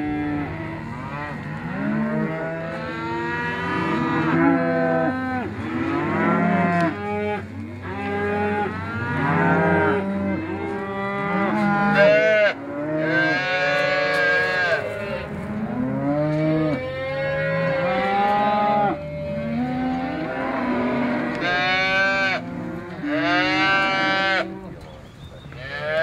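A penned herd of longhorn cattle mooing, many animals calling over one another with no break.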